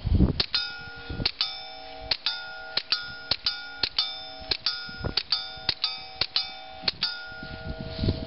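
Walther P22 .22 LR pistol with a YHM Mite suppressor firing a rapid string of shots, each one soft. Each shot is followed by the clang of the bullet hitting an AR500 steel silhouette plate, which keeps ringing in several steady tones between hits.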